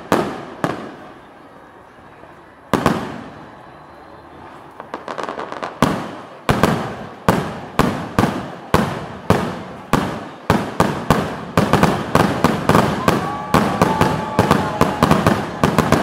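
Fireworks exploding: a few scattered bangs, then from about six seconds in a steady run of aerial shell bursts that quickens to two or three a second, with crackling between them.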